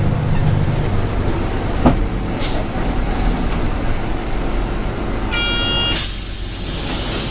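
Steady engine and road noise inside a Mitsubishi Fuso city bus. About five seconds in a short electronic tone sounds, and it is followed by a sudden hiss of released air from the air brakes that fades over a second or so.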